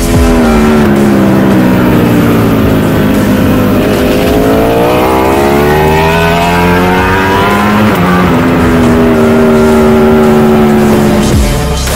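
Ducati Panigale V4 engine running hard, its note dropping for about four seconds as the revs fall, then climbing for about four seconds under acceleration and holding high near the end.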